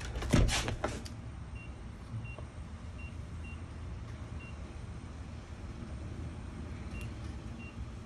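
A few handling clicks and knocks in the first second. Then a series of faint, very short, high electronic beeps at uneven intervals over a steady low outdoor background.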